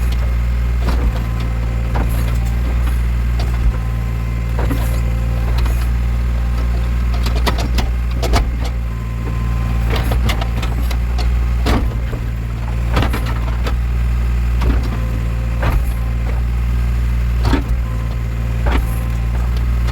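Backhoe loader's diesel engine running steadily, with irregular sharp knocks and clicks scattered through the digging work.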